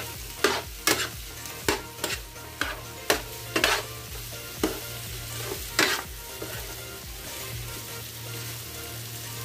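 Chicken pieces sizzling in a non-stick frying pan while a steel spoon stirs them, knocking and scraping against the pan at irregular intervals for about the first six seconds. After that only the steady sizzle of frying remains.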